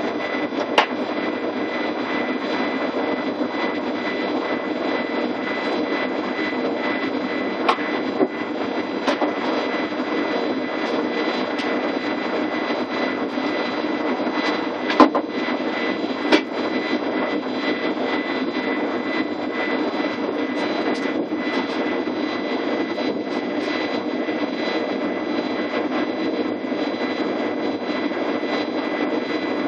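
Steady running hum of a DB Class 420 (ET420) electric S-Bahn train heard from the driver's cab as it rolls slowly, with a thin high whine held on one pitch. A few sharp clicks and knocks stand out over it, the loudest about halfway through.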